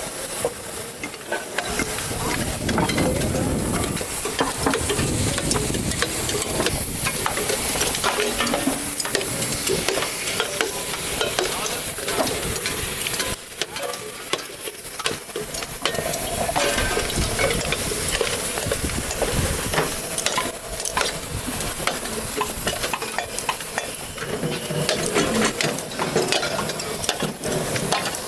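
Irregular metal clinks and knocks from the inner parts of a large scrap compressor being pulled out and broken apart by hand, over a steady crackling hiss.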